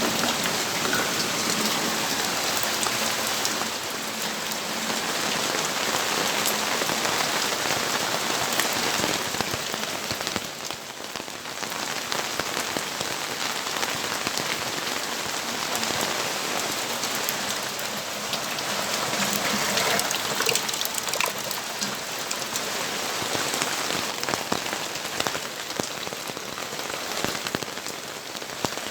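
Steady rain falling and pattering on surfaces, a dense hiss of drops with many small individual drop ticks; the rain eases briefly about ten seconds in, then picks up again.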